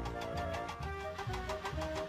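Background music: an upbeat tune with a steady bass beat.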